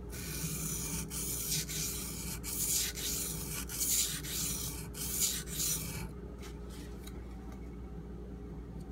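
Steel knife blade being stroked across a coarse Shapton Pro 320-grit sharpening stone, a gritty scraping in about ten quick strokes that stops about six seconds in.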